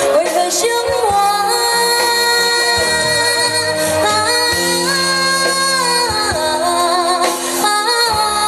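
A woman singing a pop ballad over live band accompaniment, her melody gliding with vibrato over a steady bass and beat.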